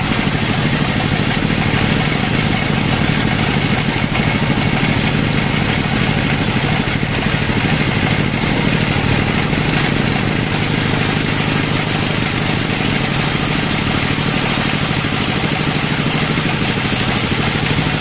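Band sawmill running steadily as a teak slab is fed through its blade: a constant machine drone under an even hiss of sawing.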